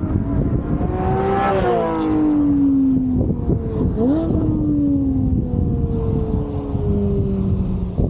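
Porsche 718 Spyder's 4.0-litre flat-six engine and exhaust under way, the engine note rising, then falling, with a quick dip and climb in pitch about four seconds in like a gear change, then slowly falling.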